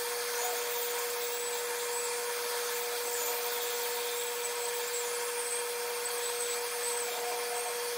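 Hot air rework gun blowing steadily on an FPGA chip to melt its solder for desoldering: a steady airy hiss with a constant low hum from the blower.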